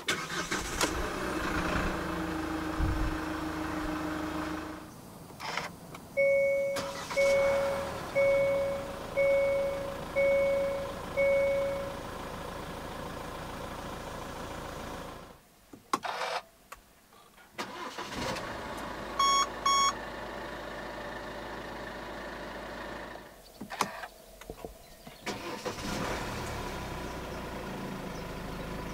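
Hyundai CRDi turbodiesel engines starting one after another and settling to idle: first a Grand Starex 2.5, then a Staria 2.2 about two-thirds of the way through, then a Tucson 2.0 near the end. Dashboard warning chimes beep over the first idle six times in a steady row, and in two quick double beeps after the second start.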